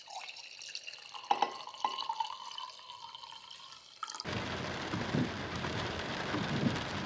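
Red wine glugging out of a bottle into a wine glass, with two sharp knocks about a second and a half in. About four seconds in it cuts off suddenly into a steady, louder hiss.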